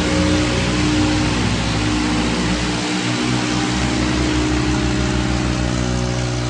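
Two Swaraj 855 tractors' three-cylinder diesel engines running hard under full load as they pull against each other, chained back to back, with a steady loud drone and a noisy hiss over it.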